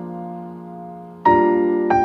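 Slow background piano music: a held chord fades away, then a new chord is struck about a second and a quarter in and another note just before the end.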